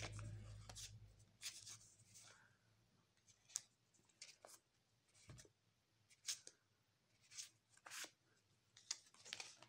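Faint, short swishes and flicks of Magic: The Gathering cards being slid through the hands one after another, about a dozen times, with a low hum in the first second.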